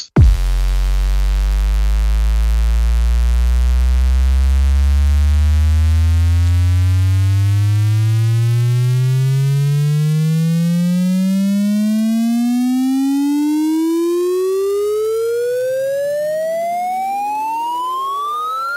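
A single electronic synthesizer tone gliding steadily upward in pitch, from a deep bass to a high whine, in one long sweep. It is a rising sweep in an electronic dance track, and it gets slightly quieter near the end.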